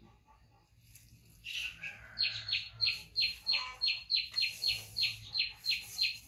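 A bird chirping repeatedly in a steady series of short, falling chirps, about three a second, starting about two seconds in after a quieter opening.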